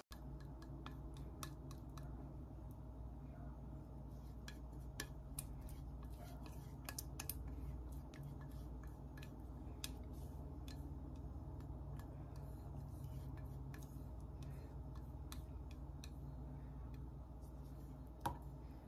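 Wire whisk clicking lightly and irregularly against a stainless steel mixing bowl as the milky maja blanca mixture is stirred, with one sharper click near the end. A steady low hum sits under it.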